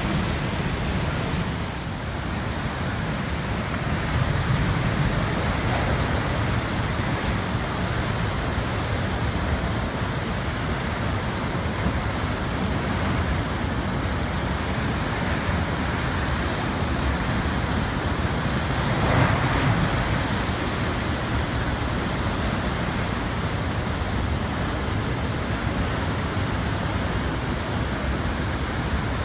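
Giant Atlantic waves breaking, a steady deep rumble of heavy surf, with one louder crash about two-thirds of the way through.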